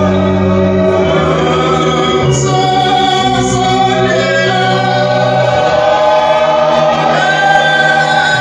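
Choir singing a hymn in slow, held harmony, with low bass notes moving to a new chord every second or so.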